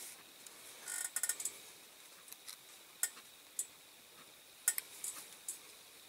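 Light clicks and scrapes of small diecast metal and plastic parts being handled by fingers: a Dinky Toys Mini Moke model's windscreen frame being pushed against the body and not going in. A quick run of clicks comes about a second in, then single clicks scattered through.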